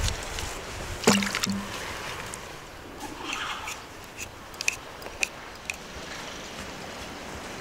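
Hand peeler scraping the skin off a raw potato. It makes short wet scrapes with a few sharp clicks, the loudest about a second in.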